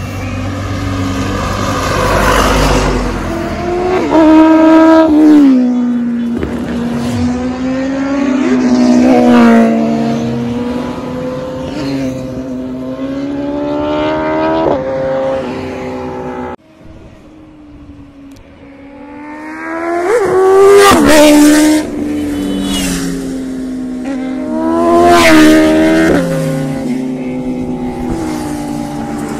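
Sport motorcycle engines revving hard in high-speed flybys, the engine pitch climbing and falling repeatedly with about four loud peaks. Just past halfway the sound cuts off abruptly, then builds back up.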